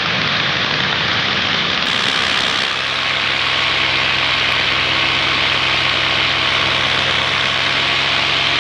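Paramotor engine and propeller running steadily in flight at a constant throttle, with a broad rush of wind over the microphone.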